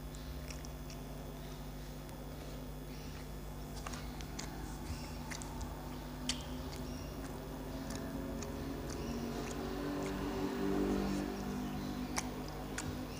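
Eating by hand from a steel plate: chewing, with sharp clicks as fingers pick through rice and fish on the metal plate, over a steady low hum. A low wavering sound swells from about eight seconds in and fades near eleven seconds.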